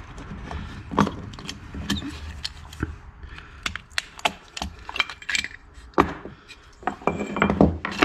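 Small screwdriver prying apart the plastic housing of a car's HVAC blower-motor resistor pack: an irregular run of clicks, snaps and scrapes as its metal retaining tabs pop loose, with one louder snap about six seconds in, and parts knocking on a wooden workbench.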